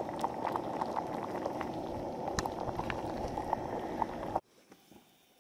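Pot of stroganoff pasta boiling on a backpacking canister stove, a steady bubbling rush with light clicks of a spoon stirring against the metal pot. It cuts off suddenly about four and a half seconds in.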